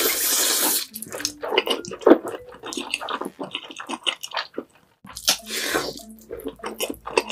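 Mouth noises of a person eating spicy ramen noodles: a long, loud slurp for the first second and another about five seconds in, with wet chewing and lip smacks in between.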